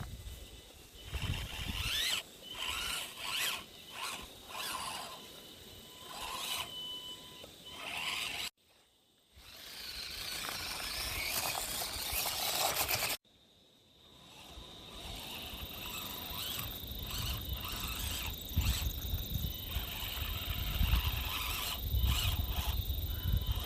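An Axial SCX24 Deadbolt micro rock crawler's small electric motor and gears whine in short stop-start bursts of throttle as it climbs over dirt, with scraping from its tyres and chassis.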